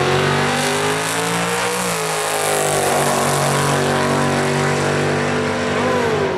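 Drag car accelerating hard off the line and down the strip at full throttle. The engine's pitch climbs, drops at a gear change about two seconds in, holds and climbs again, and drops at another shift near the end.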